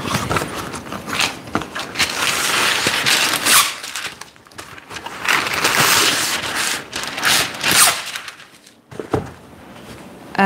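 A sheet of baking paper pulled from its box and torn off, crinkling and rustling in two long stretches, with a few sharp clicks near the end.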